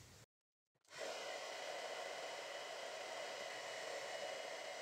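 Hair dryer blowing steadily into a cut-down plastic bottle that holds a lock of hair. It comes in abruptly about a second in, after a moment of silence.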